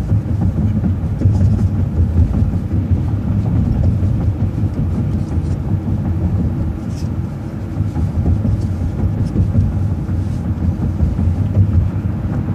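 City transit bus driving along the road, a steady low engine and road rumble with a few faint clicks and rattles.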